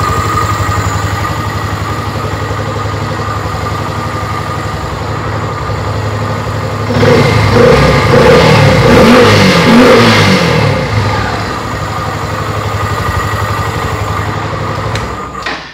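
Yamaha XTZ 150 Crosser's single-cylinder 150cc four-stroke engine idling. It is revved up and down a few times about halfway through, then switched off just before the end.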